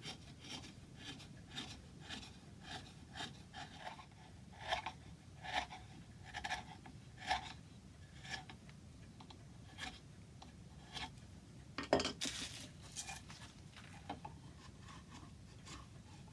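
Short scraping and rasping strokes of a hand tool on wood, coming irregularly about one or two a second, with a longer, louder scrape about twelve seconds in.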